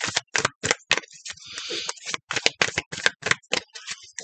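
Tarot deck being shuffled by hand: a quick, uneven run of card clicks and taps, about four or five a second, with a short papery rustle about a second and a half in.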